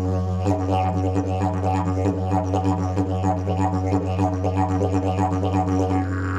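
Fiberglass triple-slide didgeridoo played as a continuous low drone, its upper overtones pulsing in a quick rhythmic pattern.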